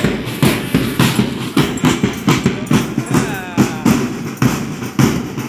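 Marching band drums, several large bass-type drums struck with sticks, playing a steady march beat.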